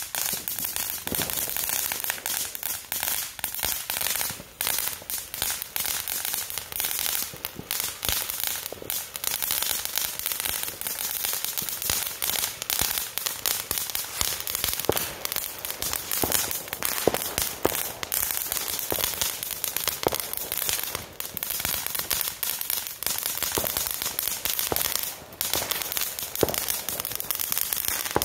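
Firework fountain spraying sparks, with a steady hiss and dense, continuous crackling.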